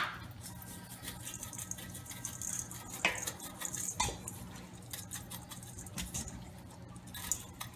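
Steak seasoning being shaken from a shaker jar over raw T-bone steaks in a metal bowl: a soft rattle and patter of granules, with two sharper taps about three and four seconds in.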